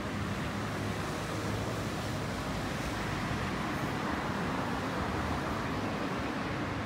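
Steady street traffic noise, an even rumble that swells slightly in the middle.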